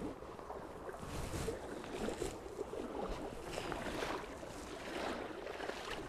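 Legs in thigh waders wading through a shallow chalk stream: water swishing around them in several soft surges over the steady rush of the current.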